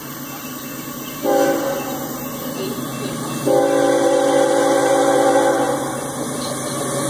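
Air horn of an approaching Union Pacific diesel locomotive sounding a chord of several notes: a short blast about a second in, then a longer blast of about two seconds.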